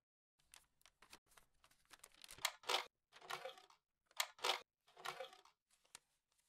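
Faint, short scratchy rustling strokes at an irregular pace, the loudest a little under three seconds in and again about four and a half seconds in.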